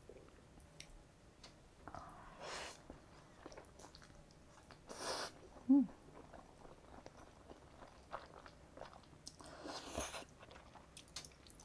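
A person eating jjapaghetti black-bean noodles close to the microphone: wet chewing with small mouth clicks, and three short slurps of noodles about 2.5, 5 and 10 seconds in.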